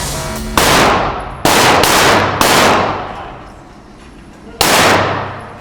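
Single gunshots fired one at a time, not in automatic bursts: three about a second apart, then one more after a pause of about two seconds, each followed by a long ringing decay.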